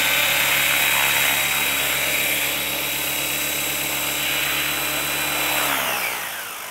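Radio-controlled model helicopter's motor and rotor whining steadily at a high pitch, then winding down, falling in pitch and fading near the end as the rotor spins down after landing.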